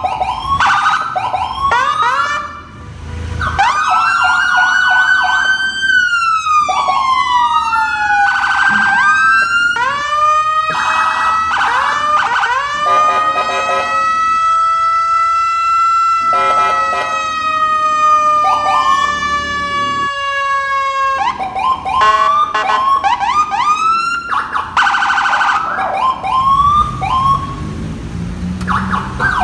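Police car siren switching between patterns: fast warbling yelps, and slow wails that rise, hold and fall again, one of them held for several seconds in the middle.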